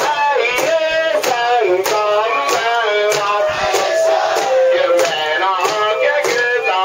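Mikoshi bearers singing and chanting together in a melodic call, several men's voices at once, over sharp clacks about every 0.6 seconds keeping the beat.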